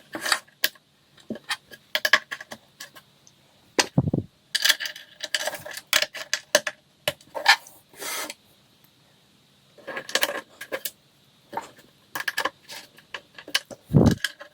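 Small metal hardware and wooden panels being handled during flat-pack furniture assembly: an irregular string of clicks and clatters, with a dull thump about four seconds in and another near the end.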